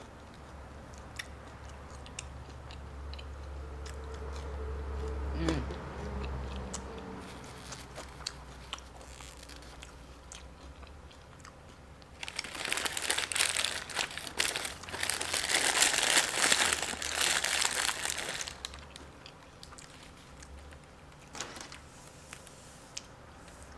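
Close-up chewing of lightly battered fried jalapeño bites, with scattered small mouth clicks and a loud stretch of crunching for about six seconds midway.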